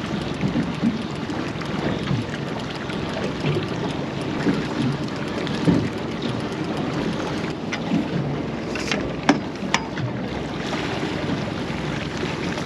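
Small boat trolling: an outboard motor running, with water washing along the hull and wind buffeting the microphone. A few sharp taps come in the second half.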